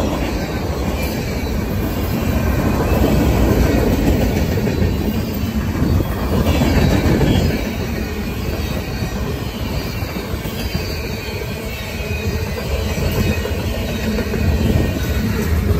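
Freight cars of a CSX train rolling past close by: a continuous rumble and clatter of steel wheels on rail that swells and eases as the cars go by.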